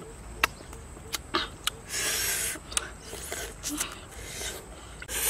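Close-up eating sounds: a person biting and chewing raw green tamarind pods, with sharp crunching clicks in the first two seconds and a longer sucking hiss about two seconds in.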